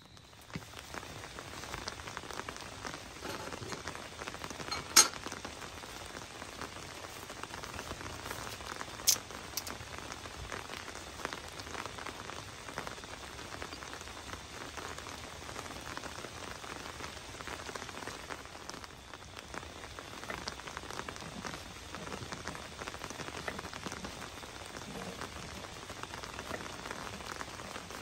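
Rain pattering steadily on a tent, a dense patter of fine drops. Two sharper clicks stand out, about five and nine seconds in.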